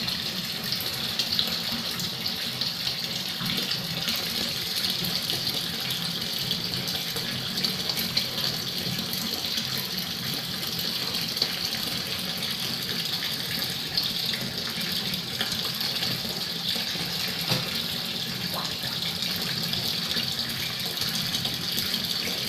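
Steady splashing of a thin stream of water pouring into a shallow tiled pond, like a running tap.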